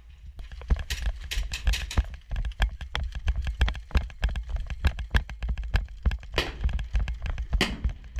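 Quick, irregular footsteps and gear clatter of a player moving over hard ground, over a steady low rumble, with two louder scuffs near the end.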